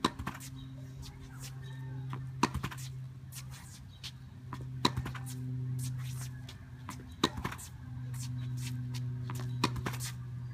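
Tennis ball rallied against an EZ Shot portable backboard: sharp pops of racket on ball and ball on board, about every two and a half seconds, some coming in quick pairs. A steady low hum runs underneath.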